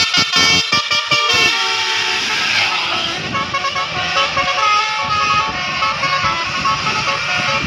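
Bus's Basuri telolet air horn playing a melody, several horn tones sounding together and changing pitch in steps from note to note.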